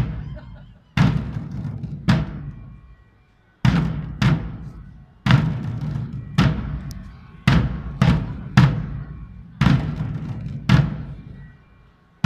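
Parade drums beating a slow, uneven cadence of about a dozen sharp beats, roughly one a second with some in quick pairs, each ringing out before the next. There is a gap of about a second and a half near the start.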